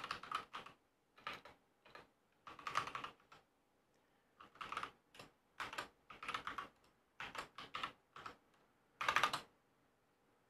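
Computer keyboard typing: irregular runs of faint keystrokes separated by short pauses, the last and loudest run about nine seconds in.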